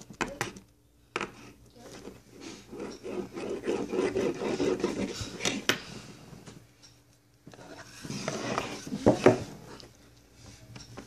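Small metal finger BMX toy bike being handled on a tabletop: rubbing and scraping as it is spun and pushed, with sharp taps and clicks, the loudest cluster of clicks near the end.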